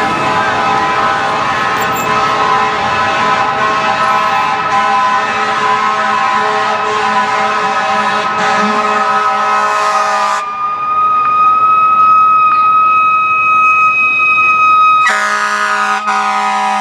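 Fire truck siren and air horns sounding in steady held tones, a dense multi-note chord. About ten seconds in it drops abruptly to a single steady high tone, and about five seconds later the full chord cuts back in.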